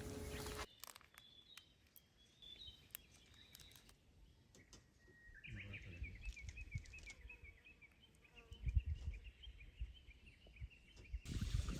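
Small birds chirping faintly outdoors: a few scattered high chirps, then from about halfway a long rapid run of repeated chirps, with some low rumble underneath.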